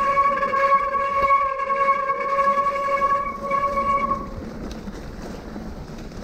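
A loud, steady high-pitched squeal with several overtones that holds one pitch, then fades out about four seconds in, leaving a low rushing noise.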